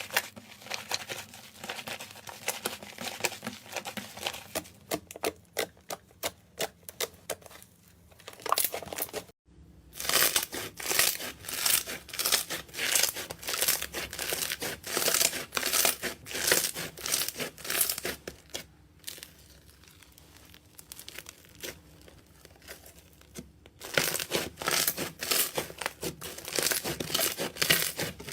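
Slime being squeezed and stretched by hand, giving rapid, irregular crackling pops and clicks. There is an abrupt cut about nine and a half seconds in to another slime clip, whose crackling thins out for a few seconds past the middle and turns dense again near the end.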